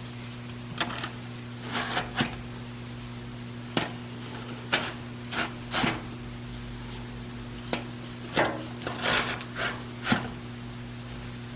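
Diesel engine oil filter elements being set into their filter housing one after another: about a dozen irregular light knocks and clicks, over a steady low hum.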